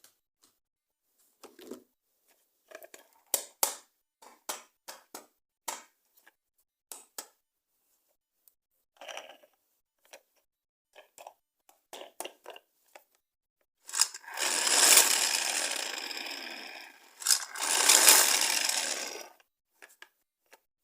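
Plastic toy packaging being handled: scattered light clicks and taps, then two loud rustling, crinkling passes of about two to three seconds each, with a brief break between them.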